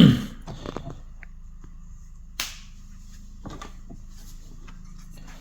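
Light handling clicks and taps, with one sharp click about two and a half seconds in, over a low steady hum.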